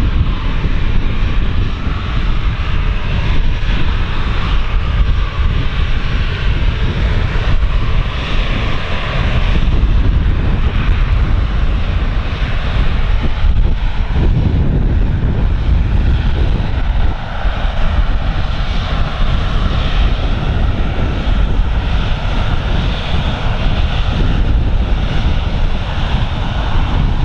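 Airliner engines running loud and steady throughout, with wind buffeting the microphone.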